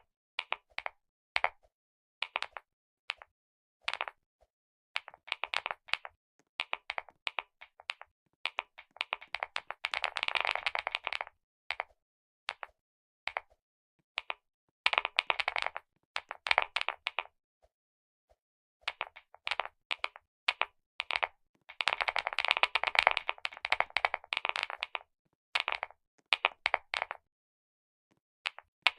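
Clicky keyboard keys being pressed: scattered single clicks and short flurries, with two longer runs of rapid clicking, around ten seconds in and again from about twenty-one to twenty-five seconds in.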